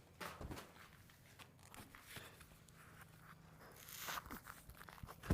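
Faint scattered rustling and crunching clicks, with a sharper knock near the end.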